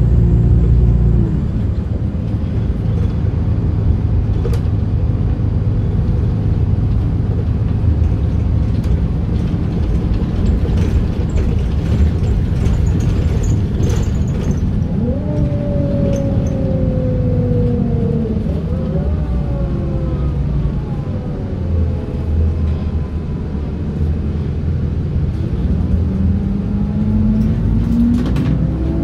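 A 2009 MAN NM 243 midibus heard from inside, its six-cylinder D 0836 diesel and ZF Ecomat automatic gearbox running with a steady rumble and scattered rattles. The engine note drops about a second in. Around the middle, whines fall in pitch twice as the bus slows, and near the end a whine rises as it picks up speed.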